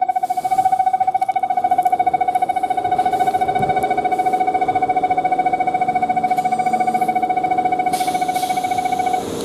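Electric departure bell ringing continuously with a rapid trill while the train stands at the platform with its doors open, signalling that departure is near. A short hiss comes about eight seconds in, and the bell cuts off suddenly just before the end.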